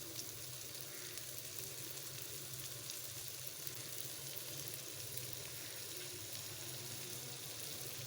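Spiced mashed goat brain frying in oil in a pan, with a steady sizzle and fine crackle, over a faint steady low hum.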